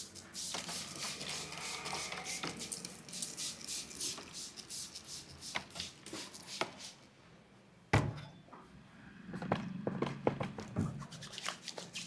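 Barber's hands tapping and patting rapidly on a client's head during an Indian head massage (champi), in quick runs of sharp taps. One single much louder, sharp smack comes about eight seconds in, followed by another run of taps.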